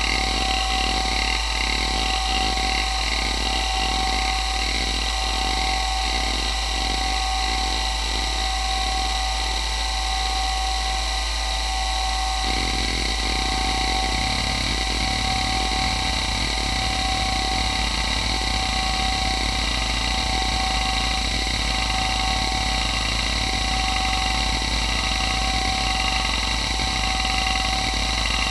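Toshiba MK2024FC 2.5-inch glass-platter hard drive running with a steady spindle whine, from bearings the owner calls not the best. Under the whine its heads seek back and forth in a rhythmic pattern of about one and a half sweeps a second. The pattern changes abruptly to a faster, busier seeking a little under halfway through.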